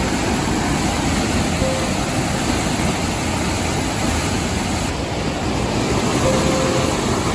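Steady rush of water swollen by heavy rain. Faint short steady tones sound twice over it, once early and once near the end.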